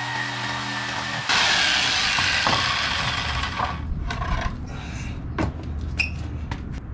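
Corded electric jigsaw running, then loudly cutting through an old wooden fence slat for about two seconds, starting about a second in. After that come scattered knocks and clatters of wood as the saw is set down and the cut-off slat is handled.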